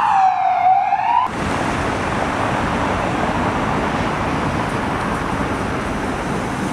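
Police car siren wailing, its pitch sweeping down and back up, then cutting off abruptly about a second in. Steady street traffic noise follows.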